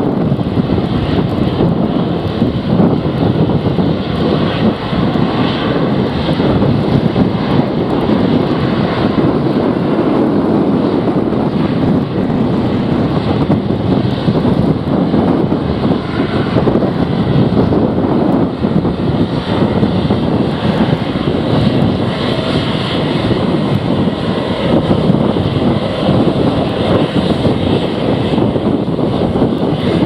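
Boeing 737-800 jet engines running at low taxi power, under heavy, gusting wind buffeting the microphone.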